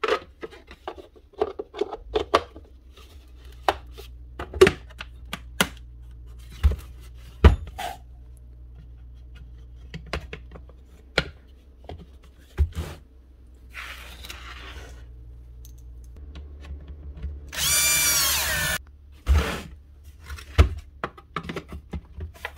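Irregular clicks and knocks of plastic vacuum-housing parts being handled and fitted on a workbench, with a short scrape partway through. Near the end a power driver's motor whirrs for about a second, its pitch wavering under load.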